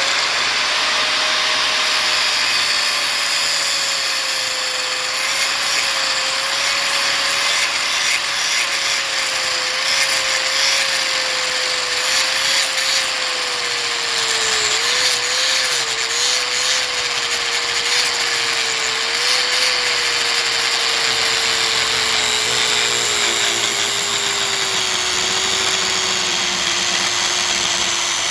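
High-speed power tool switched on and run steadily while cutting into a faucet water filter; its whine sinks slowly in pitch as it works, over a gritty cutting noise, and it stops right at the end.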